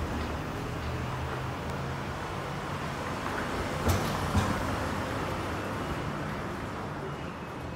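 Street traffic noise, with a vehicle engine running low and steady nearby. Two sharp knocks come half a second apart about four seconds in.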